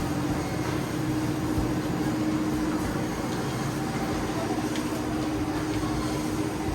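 Steady supermarket background: a constant machine hum over a low rumble, with a few faint clicks.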